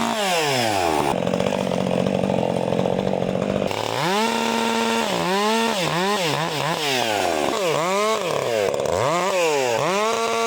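Two-stroke chainsaw engine. Its revs drop sharply, then it runs under load cutting wood for a couple of seconds, then screams back up to full throttle. It is blipped down and up several times, and held wide open near the end.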